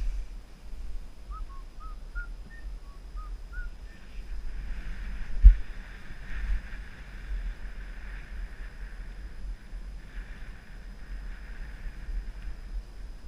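Skis sliding over packed snow, with wind rumbling on the microphone and a single knock about five seconds in. A quick run of short, high chirps sounds in the first few seconds.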